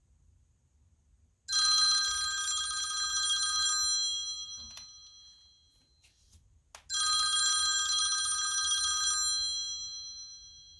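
iPhone 11 Pro ringtone playing from the phone's speaker: a bell-like ring sounds twice, each burst lasting about two seconds and fading away, about five seconds apart.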